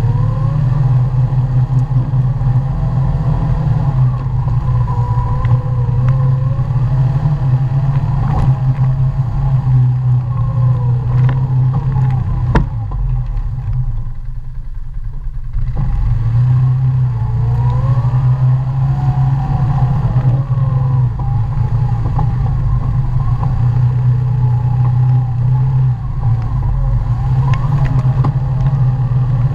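ATV engine running under a rider on a rough dirt trail, its revs rising and falling with the throttle. It eases off for a couple of seconds about halfway, and a sharp knock from the machine comes just before that.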